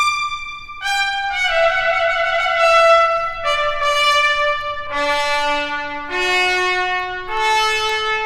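Solo trumpet playing a slow line of held notes that steps downward to a low note about five seconds in, then climbs back up.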